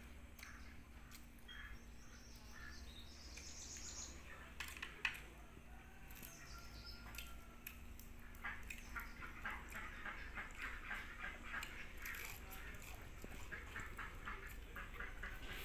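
Ducks quacking, with a rapid run of chattering calls through the second half. A single sharp click about five seconds in.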